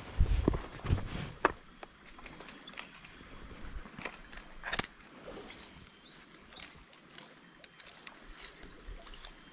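A steady, high-pitched insect drone. A few thumps and rustles come in the first second and a half, and a short click about five seconds in.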